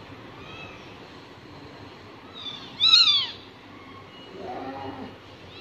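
Very young kittens mewing in thin, high-pitched cries: a faint mew near the start and a loud one about three seconds in, then a lower, softer call shortly before the end.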